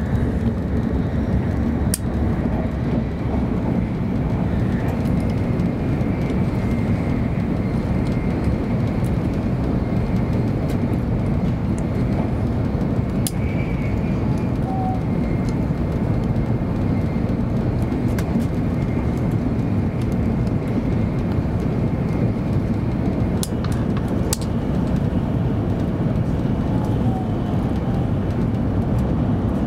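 Cabin noise inside a 700 series Shinkansen running on the line: a steady low rumble and rush of the wheels on the rails and the airflow along the car body, with a few faint ticks scattered through it.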